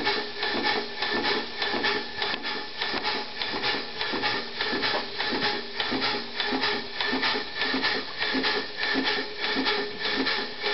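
3-inch scale Burrell traction engine model running on compressed air instead of steam, its flywheel turning at a steady speed: an even, rhythmic beat of exhaust puffs and mechanical knocks.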